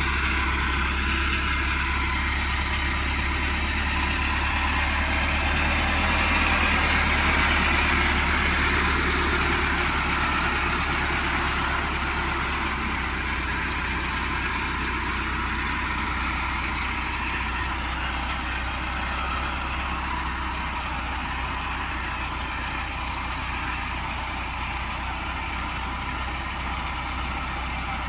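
Large farm-machine engine running steadily under a constant deep hum, swelling a little several seconds in and then easing slightly.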